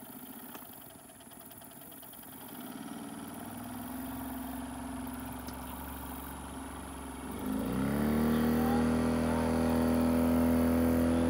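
Small outboard motor on a jon boat running at low throttle, then revving up about seven and a half seconds in to a louder, steady, higher-pitched run as the boat gets under way.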